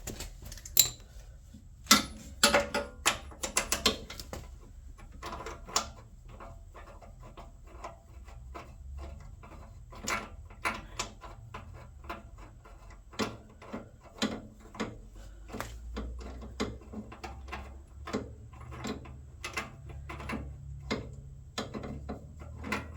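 Socket ratchet clicking as a spark plug is unscrewed from a small engine. There is a quick run of clicks about two seconds in, then separate clicks spaced through the rest.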